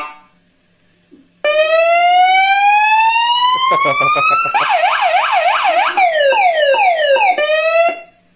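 Electronic siren horn on an electric scooter's handlebar, worked through its tones. About a second and a half in it starts a slow rising wail, switches to a fast yelping warble, then to a run of falling sweeps, and cuts off near the end.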